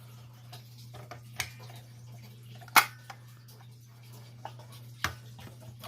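Small clicks of a hex key unscrewing the reset screw of a Fire-Lite BG-10 fire alarm pull station and the station being opened, with a sharp click about three seconds in and another near the end, over a steady low hum.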